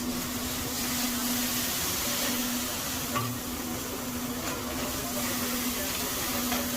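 Food sizzling on a hibachi (teppanyaki) griddle: a steady hiss, with a steady low hum underneath.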